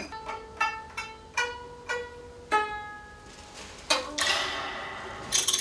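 A series of separate plucked or struck notes, each ringing briefly, about one every half second; a noisier, longer ringing swell comes in about four seconds in, followed by a quick cluster of strikes near the end.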